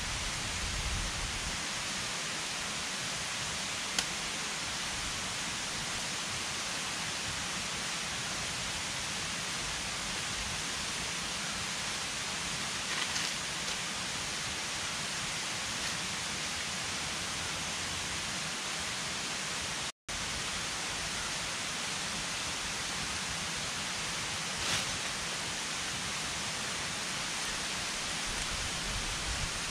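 Steady rushing of a river, an even hiss with a few faint clicks, cut off for an instant about twenty seconds in.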